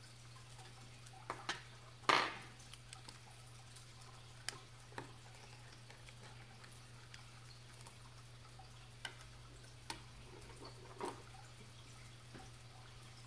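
Small screwdriver clicking and tapping against a digital watch's open case and movement during a battery change: a handful of sharp, scattered ticks, the loudest a short ringing metal clatter about two seconds in.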